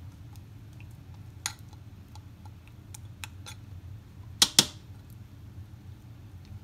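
Silicone spatula scraping mayonnaise out of a glass measuring cup, giving light clicks and scrapes, with two sharp knocks close together about four and a half seconds in, over a low steady hum.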